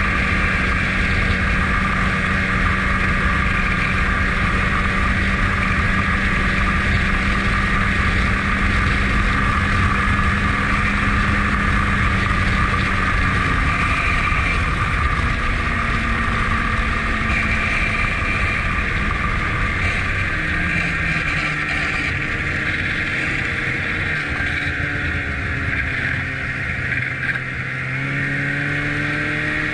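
Ski-Doo snowmobile engine running steadily under way. About two-thirds of the way in its pitch drops as it slows, then rises again near the end as it speeds back up.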